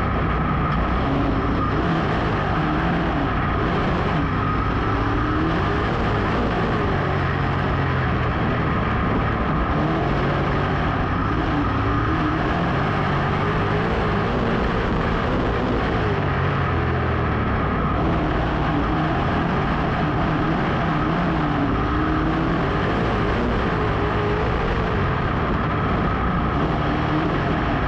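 Dirt modified race car's V8 engine running at racing speed, its note rising and falling every few seconds as the car accelerates and lifts around the track.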